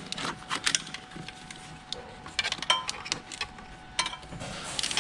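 Irregular clicks, taps and rustling of a wiring harness being worked through plastic trim and a rubber grommet by hand, with a brief squeak about halfway through.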